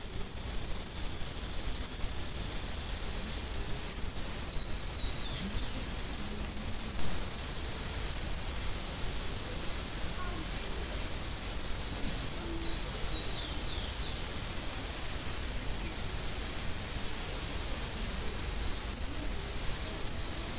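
Steady background hiss from a trail camera's microphone, with a small bird calling twice: each call a quick run of three or four high, falling notes, about four and thirteen seconds in. A short thump about seven seconds in.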